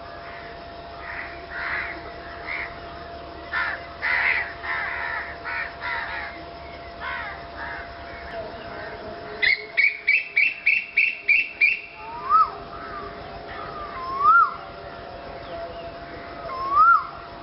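Birds calling: scattered harsh calls, then a quick run of about nine sharp calls around the middle, followed by three separate rising-and-falling call notes near the end.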